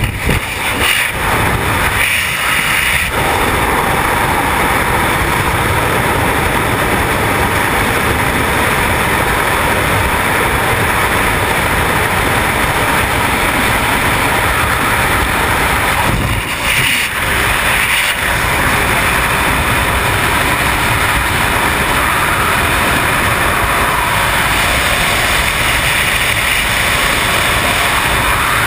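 Loud, steady rush of freefall wind blasting over a helmet-mounted camera's microphone, with brief dips in the noise about two seconds in and again a little past halfway.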